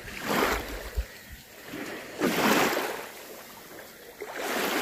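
Small waves washing up onto a pebbly shore: three swells of rushing water, about two seconds apart.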